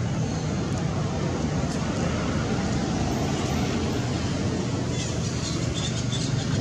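Steady rushing outdoor background noise, with a run of short high chirps starting about five seconds in.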